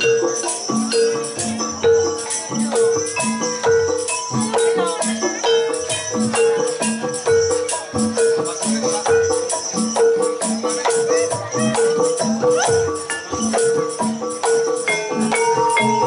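Live jaranan music from a Javanese gamelan-style ensemble: a steady beat of pitched metal strokes over dense drum and percussion strikes, with a higher melody line above.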